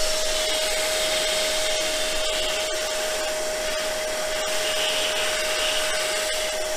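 Vacuum cleaner running steadily with a high, even whine, its hose nozzle sucking metal filings off the van's roof, with scattered small ticks as the bits are drawn up the hose.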